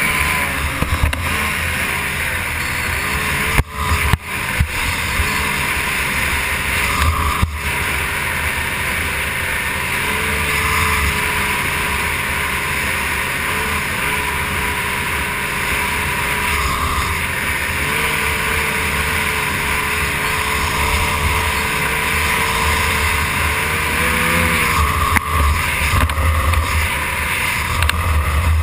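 Racing outboard motor of a stock hydroplane running at racing speed, heard from on board with water rushing under the hull. The engine note wavers steadily, drops out sharply a couple of times about four seconds in, and dips and rises again near the end.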